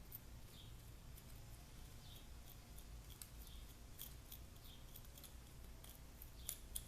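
Faint, scattered light clicks and taps of small plastic and metal appliance parts being handled, over a low steady hum, with a couple of louder clicks near the end.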